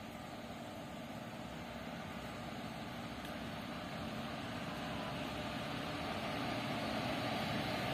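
Freight train hauled by twin WAG-5HB electric locomotives approaching, a steady hum and rumble that grows slowly and evenly louder.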